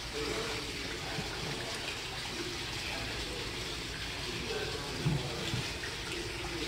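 Steady rush of running water, with faint voices in the background.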